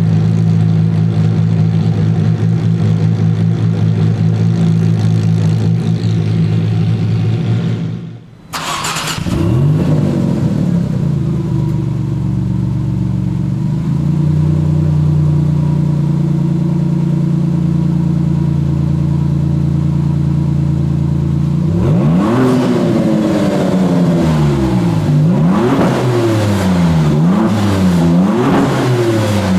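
Sports-car engine idling steadily, then after a brief break a cold start: the engine catches with a rev flare and settles into a fast idle. In the last third come several throttle blips, the pitch rising and falling each time.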